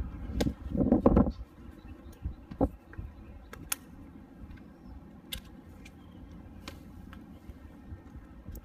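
Handling noise from an airsoft electric rifle (AEG): a dull clatter about a second in as the rifle is lifted, then scattered sharp plastic clicks and taps as its buttstock is opened and a stick battery pack with its wires is fitted inside.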